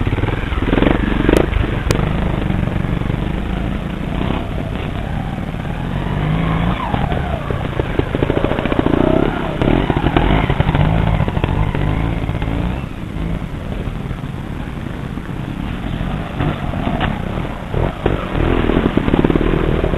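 Trials motorcycle engines revving in repeated bursts and dropping back as riders pick their way up a rocky stream bed.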